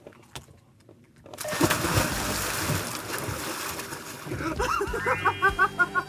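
A person plunging into a lake: a sudden loud splash about a second in, then the water sloshing as it settles.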